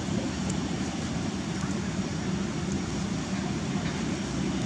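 Steady low outdoor rumble with no clear events, with one faint short chirp about a second and a half in.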